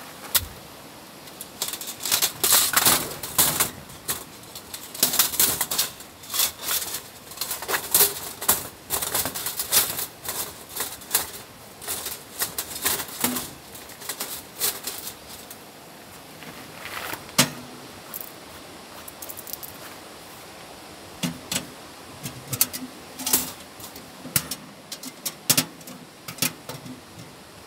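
Metal clicking and clattering as the thin panels of a folding stove windscreen are handled, unfolded and stood around a small stainless wood stove. The clicks come in irregular flurries, some with a brief metallic ring.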